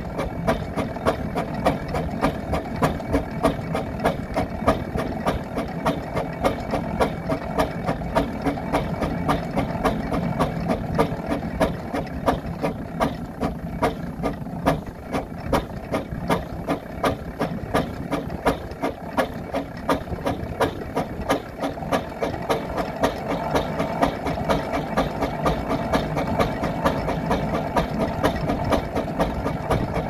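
Steam ploughing engine running steadily, its exhaust and motion making a rapid, even beat that goes on without a break.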